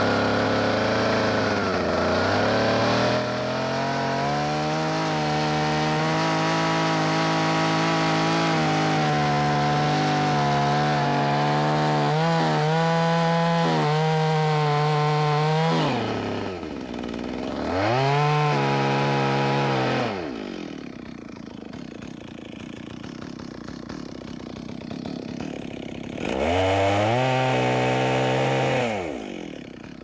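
Chainsaw cutting the horizontal gunning cut of a conventional undercut in a standing tree, held at full throttle for about fifteen seconds, its pitch wavering slightly under load. It then drops to idle and is revved up twice more briefly, falling back to idle after each.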